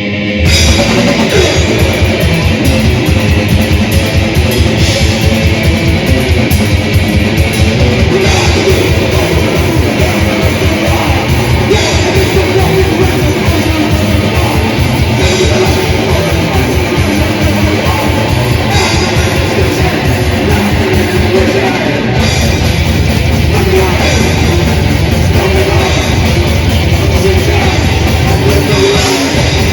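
Death/thrash metal band playing live at full volume: distorted electric guitars over fast, driving kick-drum strokes and crashing cymbals. The full band comes in about half a second in after a lone guitar, and the drum pattern changes about three quarters of the way through.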